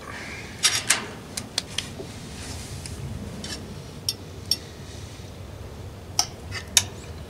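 Metal forks clinking and scraping against plates and a serving platter as food is served and eaten. There are about eight sharp clinks at irregular intervals, with the loudest near the end.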